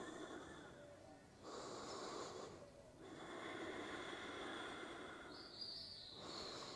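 A person breathing slowly and deeply during a held yoga stretch: about three long, soft breaths, each a rush of air lasting one to two seconds, with short pauses between.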